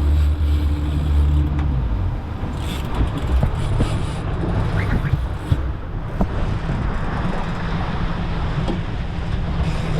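Boat motor running with a steady low hum that drops away about two seconds in, leaving wind on the microphone and water noise.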